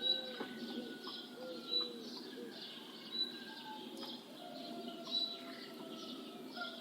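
Morning dawn chorus of several birds: short high chirps repeating every second or so over a soft background, with a run of low cooing notes in the first second and a half.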